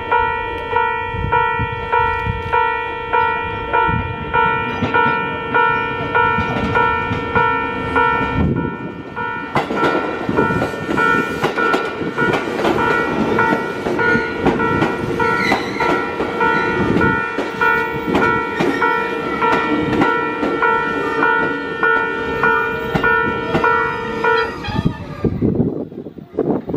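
Railway level-crossing alarm ringing, a steady ding repeating about twice a second, while a JR East 205 series 3100 electric train runs past with rolling wheel rumble and rail clicks. The crossing bell stops about 24 seconds in.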